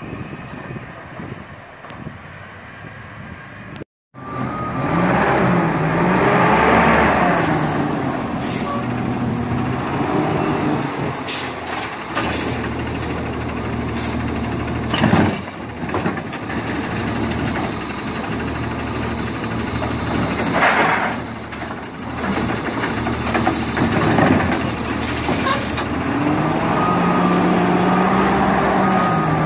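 Automated side-loader garbage truck with a Heil body: the engine speeds up and slows down as the hydraulic arm works, with hydraulic whine and a couple of loud knocks as carts are picked up and emptied, at about 15 and 21 seconds in. The first four seconds hold a quieter truck running at a distance.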